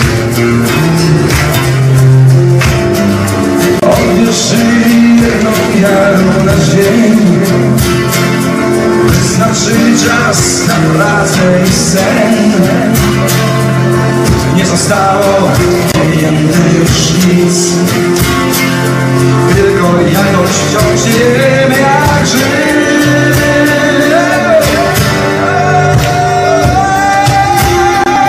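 Live acoustic band music: two acoustic guitars strumming and a cajon keeping the beat, with a male voice holding a long wavering high note near the end.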